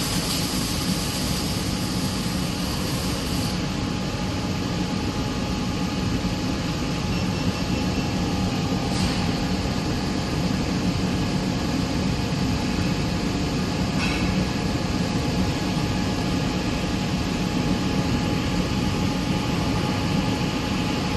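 Robotic welding station running: a steady, dense mechanical noise with a faint steady hum.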